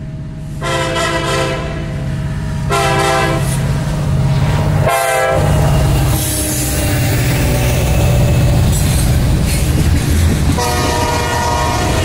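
Diesel freight locomotive horn blowing a series of blasts as the train passes close by: two longer blasts in the first few seconds, a short one about five seconds in as the locomotives go by, and another long blast starting near the end. Between blasts, the low rumble of the two diesel-electric locomotives gives way to the rolling clatter of freight cars on the rails.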